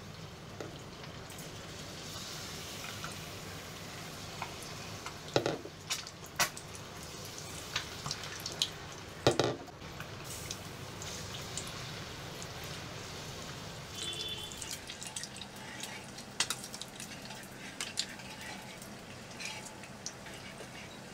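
Batter-coated boiled eggs deep-frying in hot oil: a steady sizzle with scattered sharp pops and crackles, the loudest a few seconds in and again just before halfway.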